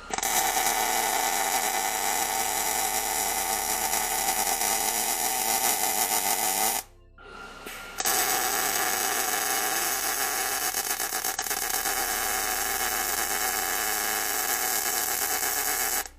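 MIG welder laying skip welds on a steel drawer front: a steady, dense crackling arc that runs for about seven seconds, stops for about a second, then runs again for about eight seconds.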